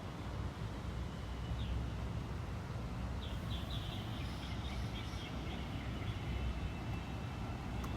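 Outdoor rainy-day ambience: a steady wash of noise over a low rumble, with a bird chirping in short bursts around the middle.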